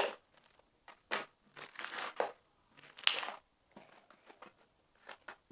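Clear slime squeezed and pressed by hand, giving sharp clicks and crackles at irregular intervals, the loudest click right at the start.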